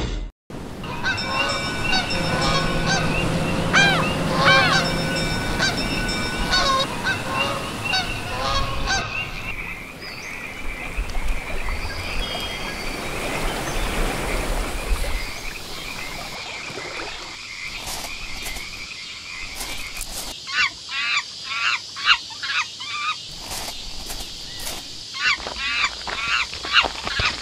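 Jungle ambience of animal calls. Several overlapping calls with short sweeping cries come first, then a steady high note from about nine seconds. From about seventeen seconds there are quick runs of short, repeated rising-and-falling calls.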